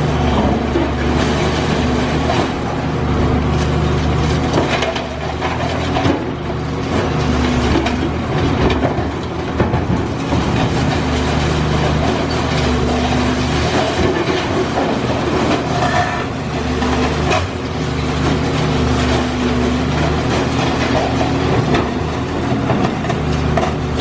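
Diesel engine of a Cat high-reach demolition excavator running under varying load, its steady low drone easing off and coming back a few times, with scattered crunching and knocking of concrete and debris as the building is pulled apart.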